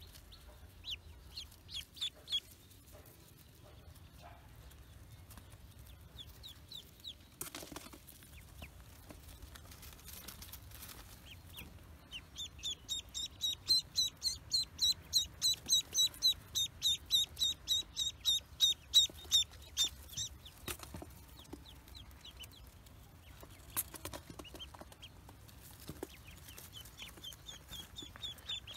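Duckling peeping: scattered high peeps at first, then a fast, regular run of loud peeps, about three a second, through the middle, with peeping starting up again near the end.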